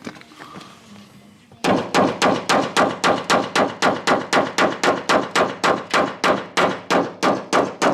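Rapid hammer blows on a Land Rover Discovery 2 wheel arch. The blows start about a second and a half in and keep going at an even pace of about four a second, each with a short ring.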